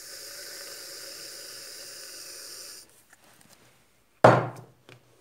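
Aerosol can of shaving foam hissing steadily as foam is pressed out, stopping abruptly about three seconds in. About four seconds in there is one loud, sudden knock.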